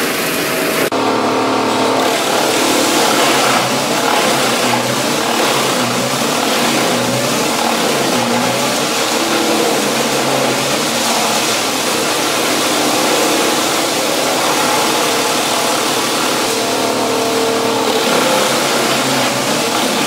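Large wood chipper running under load, chipping logs: a loud, steady engine drone mixed with the grinding noise of wood being cut. The sound changes abruptly about a second in.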